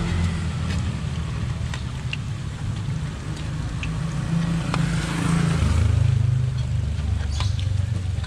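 A vehicle engine running, with a low hum that swells about halfway through. Under it, oil sizzles in an aluminium wok as food deep-fries, and a metal spatula clinks a few times against the pan.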